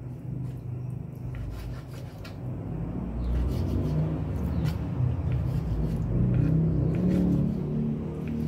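Knife cutting through chicken neck, heart and liver on a wooden cutting board, faint scattered ticks of the blade meeting the board, over a low rumble that grows louder about three seconds in.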